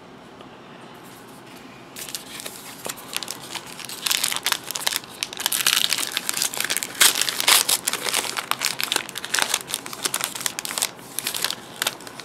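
A trading card pack's wrapper crinkling and tearing as it is opened, a crackly rustle that starts about two seconds in and is loudest through the middle.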